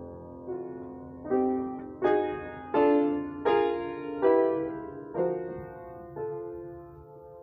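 Solo piano playing a slow passage of chords, struck roughly once every three-quarters of a second. The chords swell louder through the middle and then die away again.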